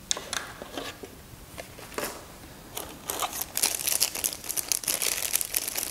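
A few light clicks of packaging being handled, then from about three seconds in a clear plastic bag crinkling steadily as a radio antenna is pulled out of it.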